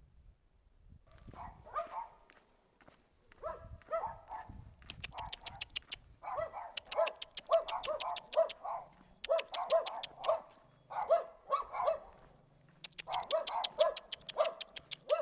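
Guard dogs barking repeatedly in quick runs, starting about a second and a half in, with a short break about twelve seconds in.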